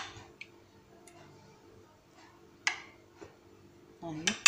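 A mostly quiet stretch with one sharp clink against a glass dish a little past halfway, and a faint tick before and after it. A woman's voice starts near the end.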